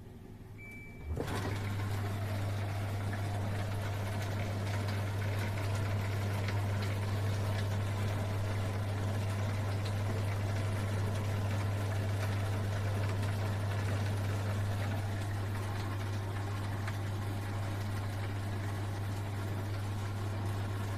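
Countertop tank-type dishwasher starting a wash: a short beep, then about a second in its pump comes on with a steady hum and the rush of water spraying inside the tub.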